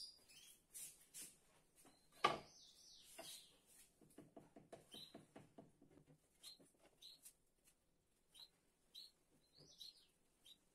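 Faint bird chirps: short high notes, each sliding down, repeating about twice a second through the second half. A single sharp knock about two seconds in stands out above them.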